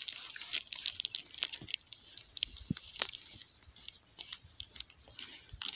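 Faint, scattered crunches and small clicks of feet and hands scrabbling in loose desert sand on a steep dune slope.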